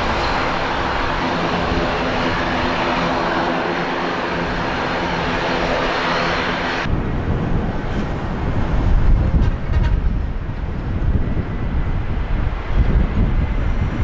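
Passenger aircraft engines running loud, an even roar over a steady hum of several tones. About seven seconds in it cuts off abruptly and gives way to gusty wind buffeting the microphone with a low rumble.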